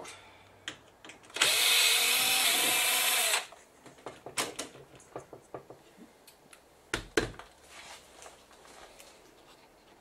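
Cordless electric screwdriver running for about two seconds, backing a screw out of the TV's power supply board. This is followed by scattered light clicks and taps from handling, with a sharper knock about seven seconds in.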